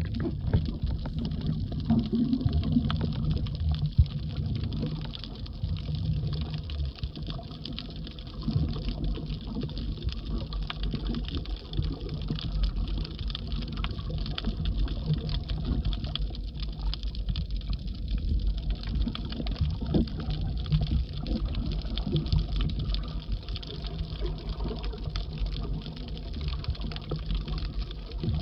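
Muffled underwater sound picked up by a submerged camera: a steady low rumble of moving water with many faint clicks scattered throughout.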